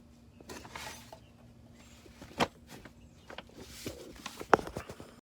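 Clicks and taps of the oil filter cartridge and its housing cap being handled and fitted, with two sharper knocks about two and a half seconds in and near the end, over a faint steady hum.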